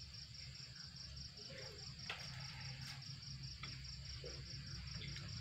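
Crickets chirping, a faint, steady, high pulsing trill, over a low hum, with a few faint clicks.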